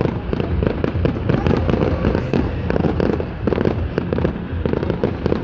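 Fireworks going off in a dense, continuous barrage of rapid cracks and bangs.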